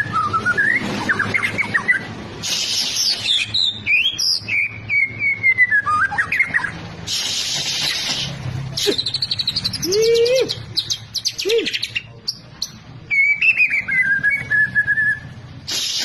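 White-rumped shama in full song: a loud, varied run of clear whistled phrases sliding up and down, broken by several harsh rasping bursts and, about two thirds of the way through, a couple of low notes.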